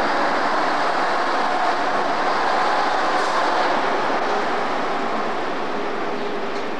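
First-generation British Rail diesel multiple unit pulling out, its underfloor diesel engines running steadily as the train moves off.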